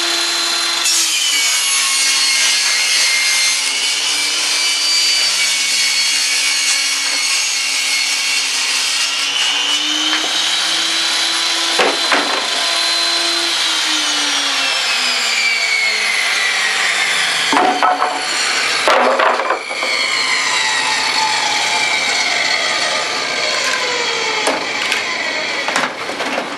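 A portable 10-inch table saw, its motor spinning the blade at about 7,500 RPM, rips through a wooden door jamb. The saw's whine dips in pitch as the blade takes the load and rises again as it eases, with a few knocks about two-thirds of the way through. Over the last several seconds the pitch sinks steadily as the saw winds down.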